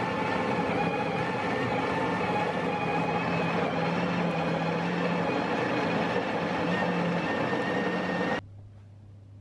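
Breville Barista Express's built-in conical burr grinder running steadily, grinding coffee beans into the portafilter. It cuts off suddenly near the end, leaving a faint low hum.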